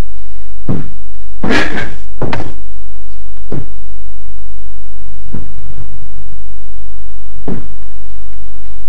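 About six short thumps and knocks at irregular intervals, three close together near the start, over a steady low hum.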